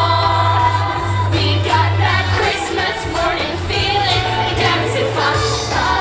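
Group of young girls singing together to musical accompaniment with a steady bass line, amplified over a public-address system.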